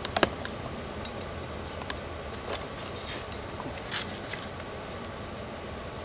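Steady background noise with a few light clicks and knocks of handling. The sharpest comes just after the start and fainter ones follow about two and a half, three and four seconds in.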